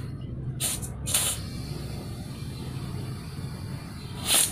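Compressed air hissing in short spurts from an air chuck pressed on a motorcycle's rear-tyre valve stem as the freshly repaired tyre is inflated: two spurts close together about a second in, and a third near the end. A low steady hum runs underneath.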